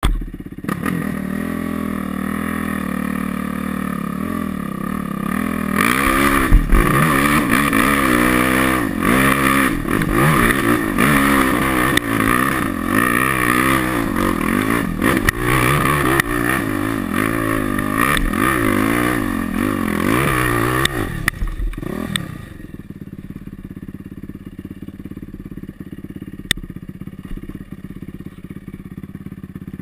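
Yamaha YZ450F's four-stroke single-cylinder engine climbing a steep dirt hill. It runs steadily at first, then revs hard up and down under the throttle for most of the climb. About two-thirds of the way in it drops to a steady idle as the bike stops on the slope.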